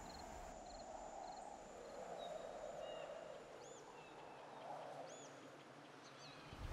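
Faint outdoor nature ambience: a soft rushing noise that swells and fades, crickets chirping in the first second, and a few short bird chirps in the second half.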